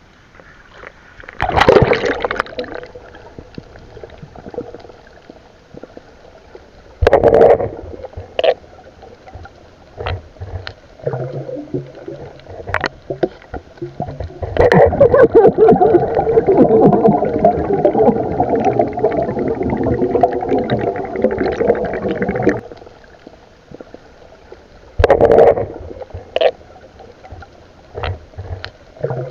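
Muffled underwater sound from a submerged camera: loud bursts of bubbling and rushing water, the longest lasting about eight seconds from the middle on, with scattered small clicks between.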